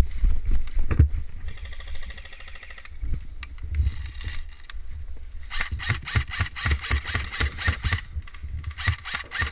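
Airsoft electric rifle firing rapid full-auto bursts, a fast run of mechanical clacks starting about halfway in, breaking off briefly and resuming near the end. Low thuds of gear handling come before it.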